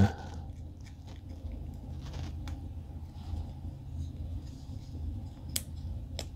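3D-printed plastic camera-case parts handled and twisted together by hand: soft rubbing and a few light plastic clicks, the clearest near the end, over a low steady hum.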